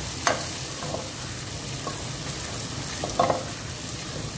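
Chopped onions, tomatoes and green chillies sizzling in hot oil in a metal pot while a spatula stirs them, with a steady hiss. The spatula knocks against the pot a little after the start and again a few times near three seconds in.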